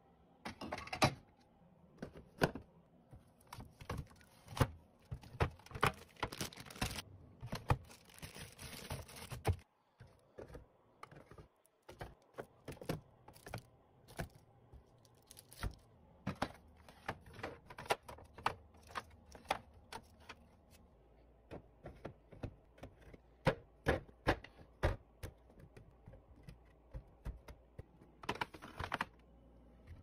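Items being set into clear plastic fridge organizer bins: a long run of sharp clicks, taps and knocks of bottles, cartons and packets against plastic, with a stretch of rustling about seven to nine seconds in.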